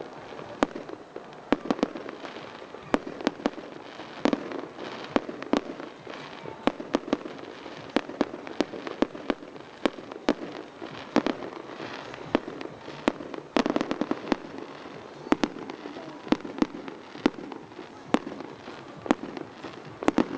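Fireworks display: dozens of sharp bangs from bursting shells in quick, irregular succession, a few of them louder.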